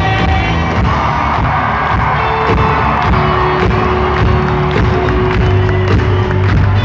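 Country-rock band playing live in a large arena at full volume, with drums keeping a steady beat, a long held note through the middle, and the crowd cheering.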